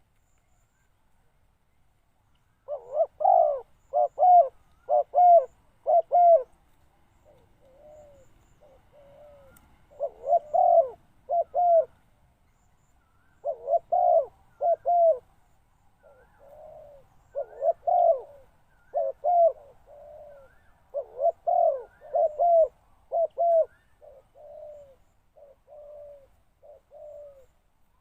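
Spotted dove cooing in repeated phrases: groups of three or four loud coos, with quieter coos in between.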